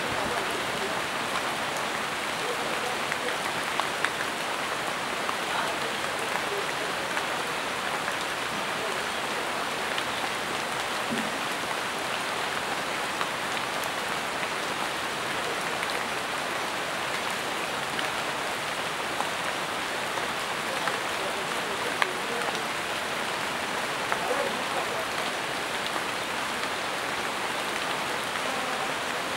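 Steady rain falling on jungle leaves, with scattered sharper drops hitting close by, two of them louder at about 4 and 22 seconds in.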